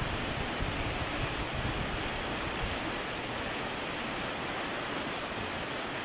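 Heavy rain pouring down steadily on a wet concrete path and garden foliage, an even hiss. During the first couple of seconds gusty wind rumbles on the microphone, then dies down.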